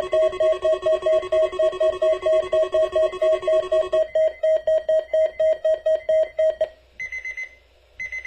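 Weather radio receiver's alert alarm beeping rapidly, about five beeps a second, set off by the weekly test broadcast. The beeping thins out about halfway and stops, followed by two short, higher beeps near the end.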